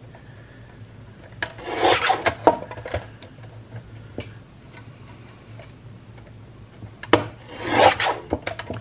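Guillotine-style paper trimmer cutting paper: the blade arm comes down through the sheet with a scraping swish, twice, about five seconds apart, each stroke starting with a sharp click.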